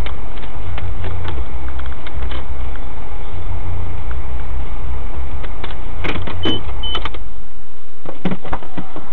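Suzuki SX4 with a K&N Apollo intake driving, heard from inside the cabin: a steady low engine and road rumble. In the second half come several sharp clicks and knocks, and the rumble falls away near the end.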